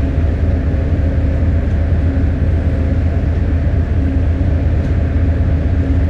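Steady low drone of a cruise ship's engines and machinery, with a few constant hum tones above the rumble.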